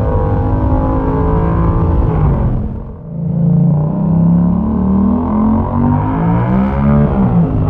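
Yamaha MT-07's 689 cc parallel-twin running through a Mivv exhaust with the dB killer removed, under acceleration. The revs drop sharply on an upshift about three seconds in, then climb steadily for about four seconds before dropping on the next upshift near the end.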